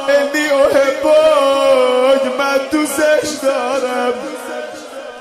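Male voice chanting a slow melodic line with long, wavering held notes, fading out over the last couple of seconds.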